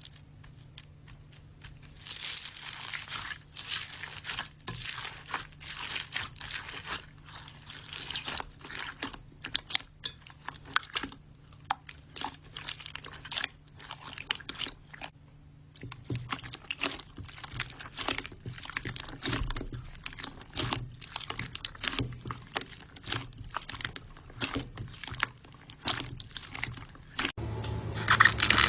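Slime being squeezed and poked by hand, giving dense, irregular crackling clicks and pops. It is quiet for the first couple of seconds, and there is a short lull about halfway through.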